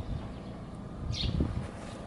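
Yamaha SR400's single-cylinder four-stroke engine idling with an uneven low pulse, running with no abnormal noises. A bird chirps once about a second in.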